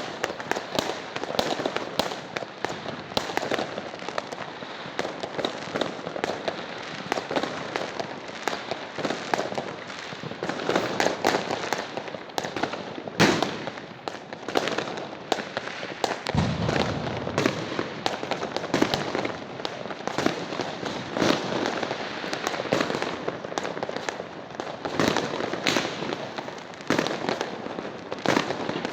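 Fireworks going off without pause: a dense stream of rapid pops and crackles mixed with bangs, one louder bang about halfway through followed by a short low rumble.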